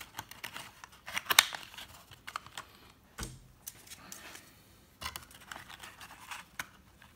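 Small discs of thin PET plastic being flexed and pressed into round holes in a plywood frame: irregular crinkling, clicks and taps, with a dull knock about three seconds in.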